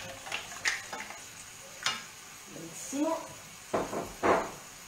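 Wooden spoon stirring and knocking in a frying pan of mussels, cherry tomatoes and cannellini beans, which sizzle over a high gas flame. The spoon makes a few short scrapes, the loudest two near the end.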